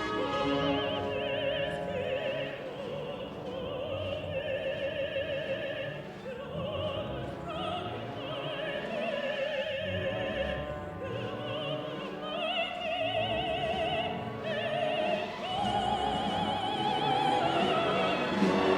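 Contralto singing with orchestra, held notes with a wide vibrato in phrases broken by short breaths, the line climbing higher near the end.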